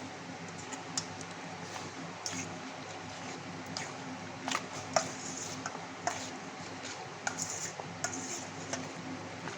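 Chicken pieces being mixed in their wet egg-and-cornflour marinade in a bowl, with irregular sharp clinks of a spoon or utensil against the bowl, over a faint steady hum.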